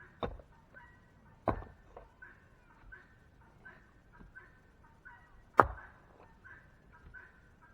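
Three sharp strikes of a hammer breaking brick into aggregate, the loudest about five and a half seconds in, with a few lighter knocks between. Chickens call over and over in short notes underneath.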